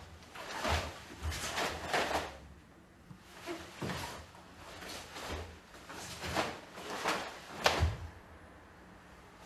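A karate gi snapping with swift strikes and blocks, and bare feet thudding and sliding on a wooden stage floor during a kata: a string of short sharp swishes, some with a dull thud, the sharpest about three-quarters of the way through.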